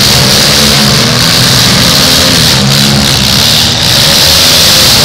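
Demolition derby cars' engines running loud and revving, several at once, with no clear crash heard.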